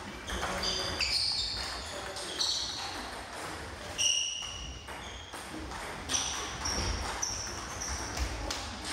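Table tennis balls knocking on tables and bats in irregular rallies, each hit a short ringing click, some hits close together.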